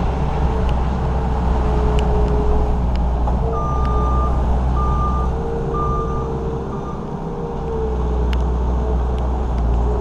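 New Holland L230 skid steer's diesel engine running steadily under work, with its backup alarm beeping three times about a second apart as it reverses.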